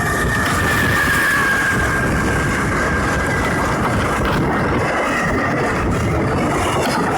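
A train passing close by at a level crossing: a loud, steady rumble of wheels on rail, with a faint high whine that drops slightly in pitch in the first two seconds.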